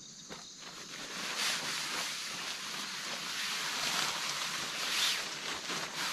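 Blue plastic tarpaulin crinkling and rustling as it is picked up and shaken out, swelling in several surges.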